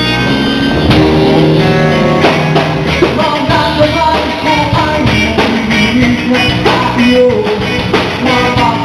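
Live rock band playing, electric guitar over bass and a steady drum beat.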